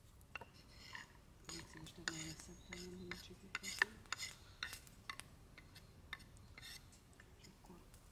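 Light, irregular clinks, taps and scrapes of cooking utensils handled against cookware, with a string of short knocks through the middle.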